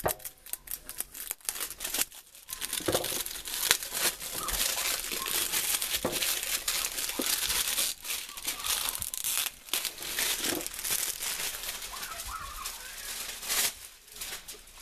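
Packaging wrap being torn off a boxed set and crumpled in the hands: a dense run of crinkling and tearing with many sharp little crackles, starting a couple of seconds in and easing off near the end.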